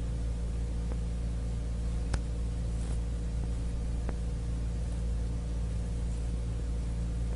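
Steady low electrical hum with an even hiss, broken only by a couple of faint clicks.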